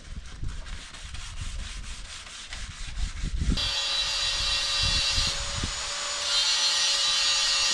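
Low knocking and handling noises, then about three and a half seconds in a power sander starts and runs steadily with a hissing rasp and a steady motor hum.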